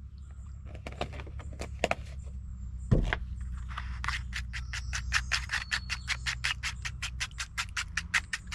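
A plastic spoon beating eggs and milk in a paper bowl for French toast batter. It gives a fast, even clicking and scraping, about five strokes a second, from about four seconds in, after a few scattered taps and one thump near three seconds. Background music with a steady low bass runs underneath.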